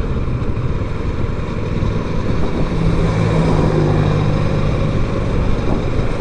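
Kawasaki Versys 650's parallel-twin engine running at a steady road speed, mixed with rushing wind and road noise on the bike-mounted microphone.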